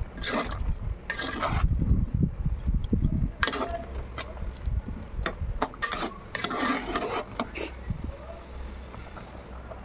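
A metal ladle stirring simmering mutton curry in an aluminium pot, scraping and knocking against the pot in short strokes, just after tamarind has been added. A low rumble runs under the first few seconds.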